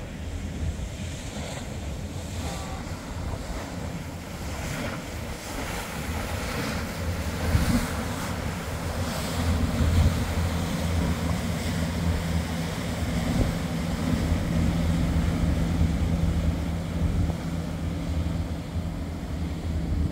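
Wind buffeting the microphone over the rush of a cruise boat's churning wake, with the boat's engines giving a steady low hum that grows stronger partway through.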